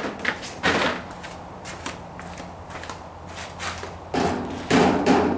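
Scattered knocks and clatter of a caster wheel and locking pliers being handled and clamped against a crawfish cooker's leg, with a louder knock about a second in and a longer clatter near the end, over a low steady hum.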